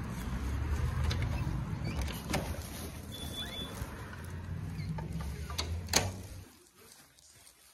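Wind rumbling on the phone's microphone, with a few clicks as a glass-paned wooden front door is opened and walked through. A sharp knock comes about six seconds in, and then the rumble cuts off suddenly as the sound turns to quiet room tone.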